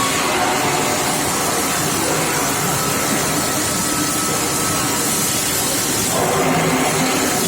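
Steel pipe induction heat-treatment line running: a loud, continuous machine din with a hiss-like noise and a few faint steady tones over it.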